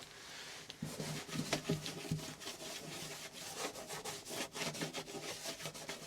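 Cloth rag rubbing back and forth over the car's bare metal body panel, degreasing it before sound-deadening pads go on: an uneven run of scratchy wiping strokes with small ticks.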